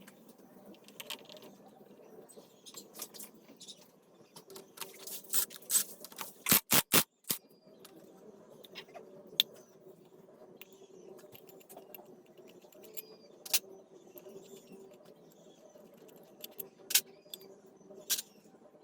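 Metal tools and engine parts clinking and knocking against each other. A quick run of four or five sharp knocks comes about six to seven seconds in, followed by scattered single clicks.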